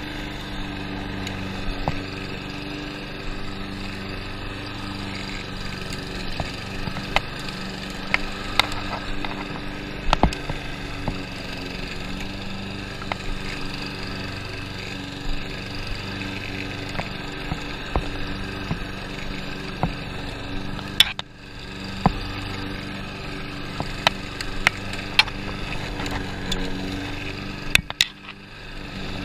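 Lawn mower engine running steadily under load, with scattered sharp clicks and knocks. The engine note dips briefly twice in the second half.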